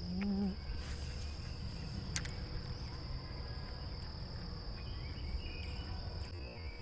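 Insects trilling steadily on one high pitch, with a single sharp click about two seconds in.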